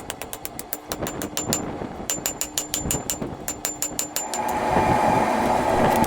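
Rapid hammer strikes on metal, about five or six a second in short runs, each with a brief ring. About four seconds in, a steady, louder rushing noise takes over.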